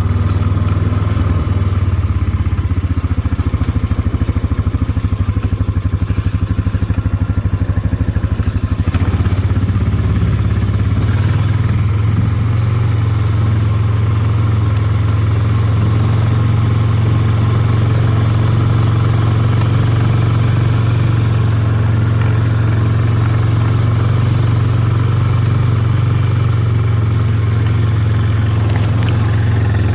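Single-cylinder engine of a 2009 Honda Rancher four-wheel-drive ATV running while being ridden. The engine note changes about ten seconds in, then runs steady.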